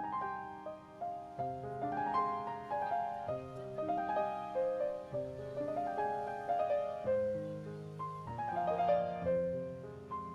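Background piano music, a melody of struck notes over sustained low chords.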